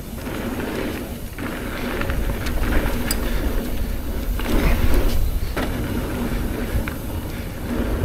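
Trek Rail electric mountain bike rolling down a rough, rocky trail: steady tyre and trail noise over a low rumble, with a few sharp clicks and rattles from the bike.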